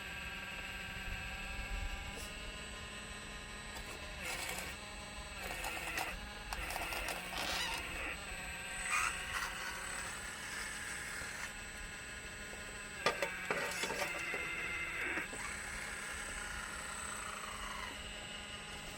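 Radio-controlled scale Volvo 360L excavator working, its hydraulic pump and motors whining in several tones that rise and fall and start and stop as the machine moves, with a few sharp clicks.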